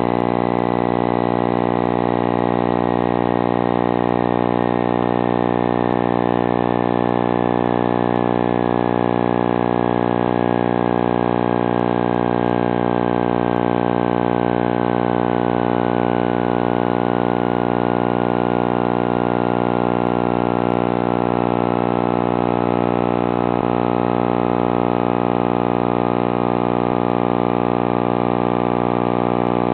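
A steady motor hum made of many even tones, with a fainter whine above it that slowly falls in pitch.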